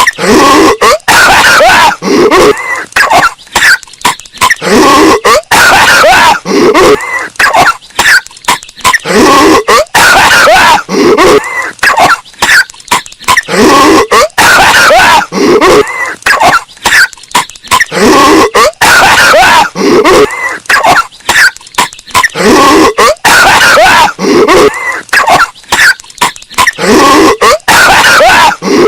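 Patrick Star's cartoon coughing fit, looped over and over, bass-boosted and distorted. Each pass is a run of rough, hacking coughs, repeating about every four and a half seconds at full volume.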